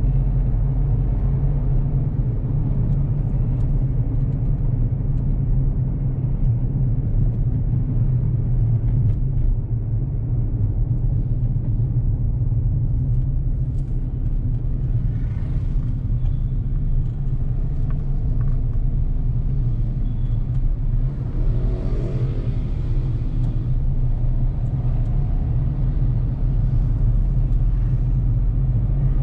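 Car driving along city streets: a steady low rumble of engine and road noise, with brief rises of higher-pitched noise about fifteen and twenty-two seconds in.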